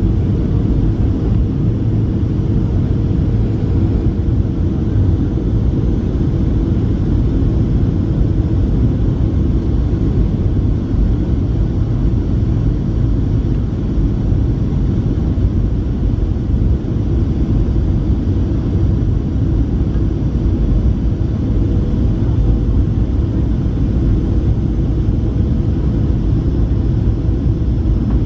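Cabin noise inside a Boeing 737-700 during its descent to land: a steady low rumble of its CFM56-7B turbofan engines and airflow, with a faint steady tone.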